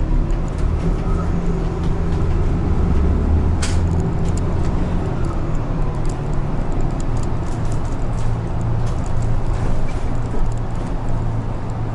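Isuzu city bus engine and road rumble heard from inside the cabin at the front while the bus drives along. A steady low hum throughout, with a sharp click about four seconds in and a few light ticks later.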